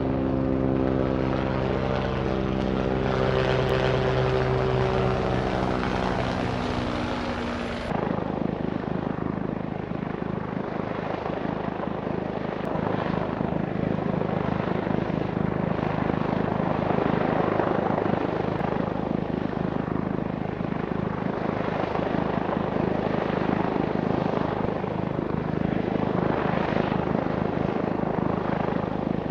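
YU XIANG F11-S AH-64 Apache 1/32-scale RC helicopter running with its rotors spinning, at first a steady whine of several tones. About eight seconds in it changes abruptly to a rougher, noisier rotor buzz that carries on steadily.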